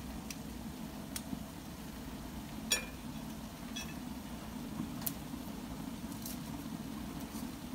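Cooking in a Dutch oven: a handful of short, sharp clicks and clinks, the loudest about three seconds in, over a steady low rumble.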